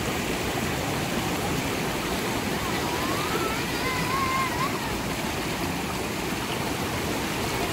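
Steady rush of river water flowing over rocks. A faint wavering tone rises and falls briefly near the middle.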